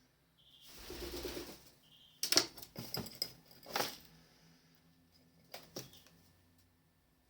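A bird's wings flapping for about a second, followed by several sharp clicks and taps on a hard surface, the loudest a few seconds in.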